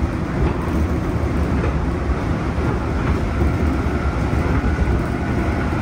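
JR 211 series electric multiple unit running, heard inside the passenger car: a steady low rumble of wheels on rail and the car body, with a faint whine coming in about halfway through.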